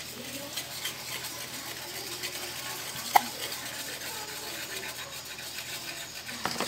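Quiet kitchen background of faint voices and a light steady hiss, with one sharp tap about three seconds in.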